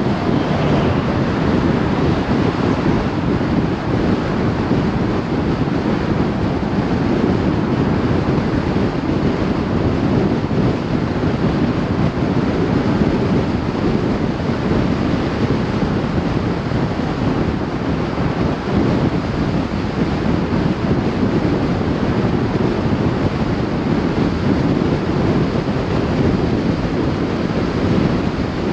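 Steady rush of wind on the microphone mixed with tyre and road noise from a vehicle driving at speed along a highway.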